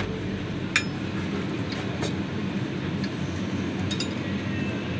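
Cutlery clinking against plates, one sharp ringing clink about a second in and a few lighter clicks after it, over a steady background hum.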